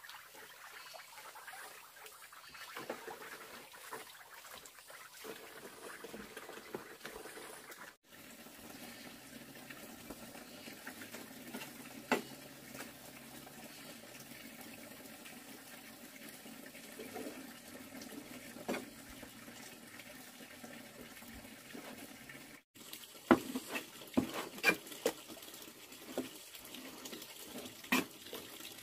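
Water running and splashing, as at a tap or sink, with scattered sharp clinks and knocks that come more often in the last few seconds.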